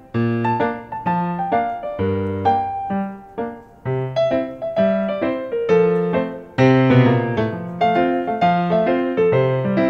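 Background piano music: a melody of struck notes and chords, each note ringing and fading away.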